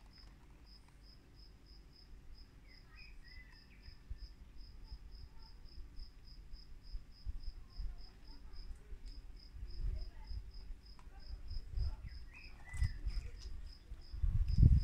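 A cricket chirping steadily in an even, rapid series of short high chirps. A few low bumps sound underneath, the loudest near the end.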